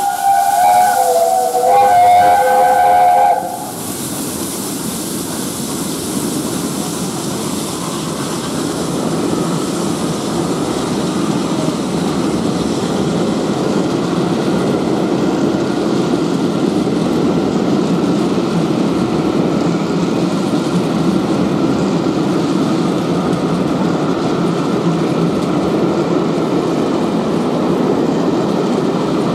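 LNER A1 Pacific steam locomotive 60163 Tornado sounding its steam whistle in two blasts, several notes together, over the first three seconds or so. Then its train of coaches runs past at speed with a steady rushing rumble that grows a little louder and holds.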